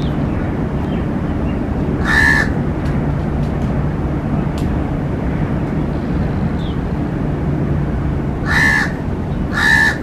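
Crow cawing three times: one caw about two seconds in, then two close together near the end, over a steady low rumble.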